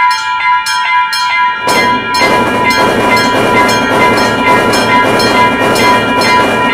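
Railroad crossing bell ringing in quick repeated strikes, about two to three a second; about two seconds in, a passing train's rumble joins it and continues under the bell.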